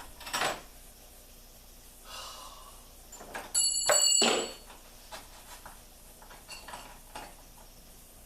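Metal hand tools clinking and knocking. About three and a half seconds in comes a sharp metallic clang that rings briefly with a bell-like tone.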